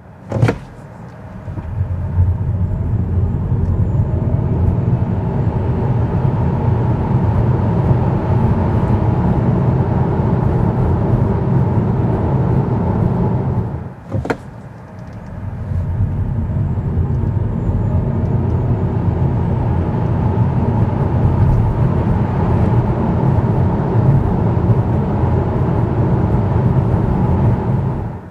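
Steady road and tyre noise inside the cabin of a BYD Dolphin electric car driving at speed, with no engine note. A sharp click and a brief dip come about 14 seconds in, and then the noise builds back up.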